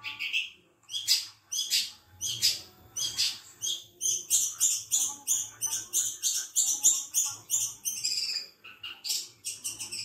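Caged long-tailed shrike (cendet) singing: a fast, continuous run of short, high, sharp notes, several a second, broken by brief pauses between phrases.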